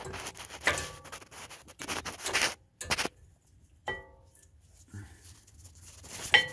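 A brake pad being worked into its caliper bracket by gloved hands: scraping and rustling of the pad against the bracket's metal clips, a short ringing metal click about four seconds in, and a louder metallic clink near the end as the pad is pressed into place.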